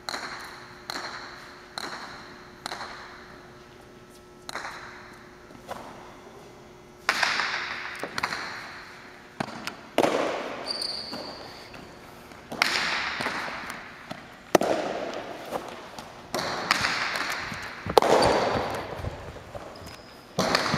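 Jai alai pelota striking the walls and floor of the cancha, each impact ringing with a long echo in the large hall. Lighter bounces come about once a second at first, then louder sharp cracks every one to two seconds from about seven seconds in as the ball is played.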